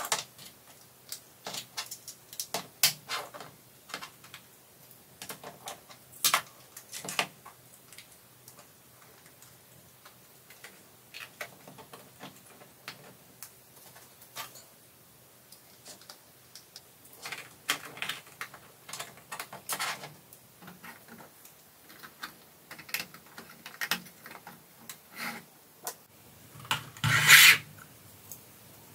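Hands handling and fitting 3D-printed plastic lamp parts together: irregular clicks, knocks and rubbing of plastic on plastic, with a louder clatter near the end.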